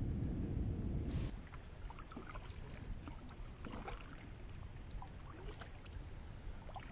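Wind buffeting the microphone for about the first second, then kayak paddling: a double-bladed paddle dipping into the river with light splashes and scattered water drips, over a steady high whine.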